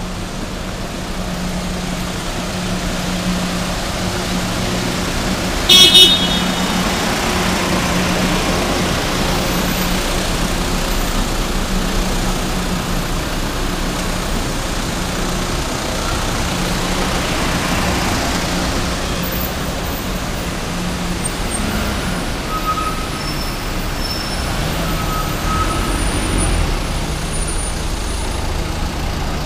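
Road traffic with vehicle engines running past and a steady low hum. About six seconds in there is a short, loud, high tone.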